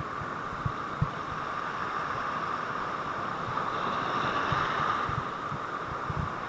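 Rough surf washing in over a rocky shore, a steady rushing, with scattered short low thumps.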